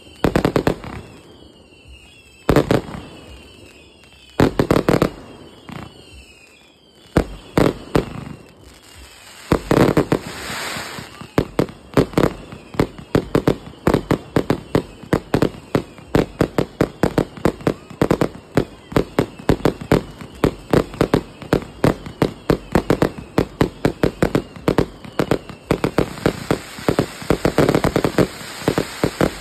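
Fireworks going off: a few separate loud bangs with short falling whistles in the first several seconds, then from about ten seconds in a dense, rapid string of bangs and crackles that carries on without a break.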